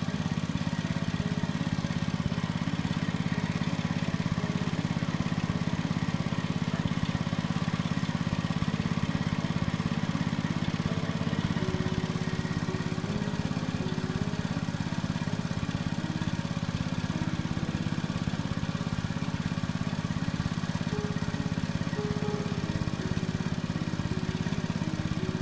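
A small engine running steadily, with a simple background melody playing over it.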